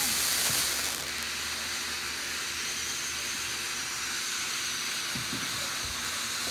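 Ground fountain firework spraying sparks with a steady hiss, a little louder in the first second.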